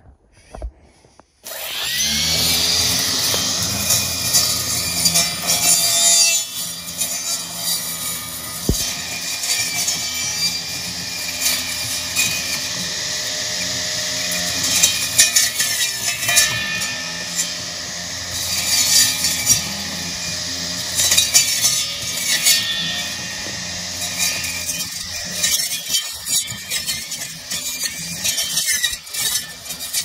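Homemade RC robot's spinning saw blade cutting through weeds and brush: a steady motor hum with a high rasp as the blade bites into stems. It starts about a second and a half in, and near the end the steady hum gives way to irregular crackling and snapping.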